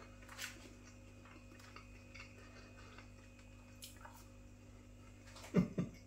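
Faint mouth sounds of a man chewing a mouthful of beef burger with his mouth closed: scattered soft wet clicks and smacks, then a brief low hum near the end.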